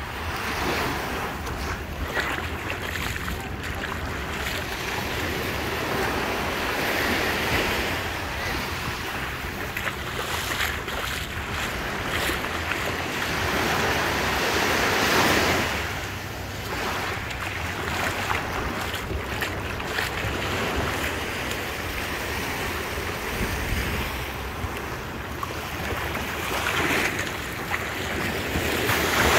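Small waves breaking and washing up on a sandy beach, the surf swelling and easing every several seconds, loudest about halfway and near the end. Wind buffets the microphone underneath.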